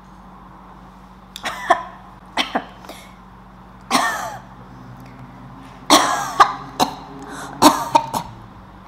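A woman coughing and clearing her throat repeatedly, in short fits of one to three coughs every second or two.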